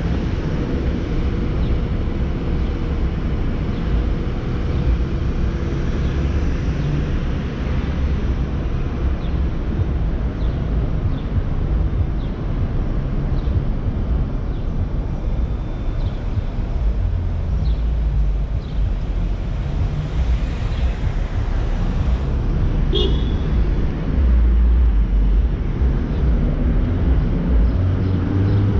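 Car driving in city traffic: a steady low rumble of engine and road noise, with a brief high squeak about three-quarters of the way through.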